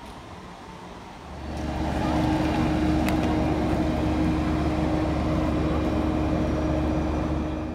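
Quiet indoor hall ambience that gives way, about a second in, to the louder, steady drone of machinery on an airport apron: a deep rumble under a constant hum, with a single click about three seconds in.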